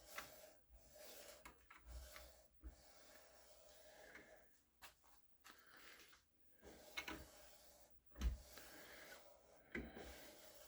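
Quiet, irregular rubbing and scraping strokes of hand work on a wooden workpiece, with a few light knocks, the sharpest about eight seconds in.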